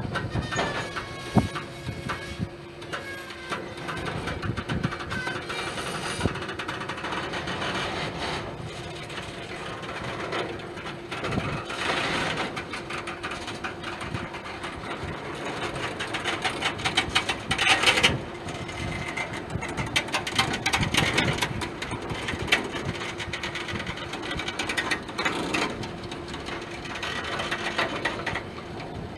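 Freight cars rolling past close by: steady rumble and clatter of steel wheels on the rails, with many sharp clanks and a few short squeals in the first few seconds. It grows louder for a couple of seconds past the middle.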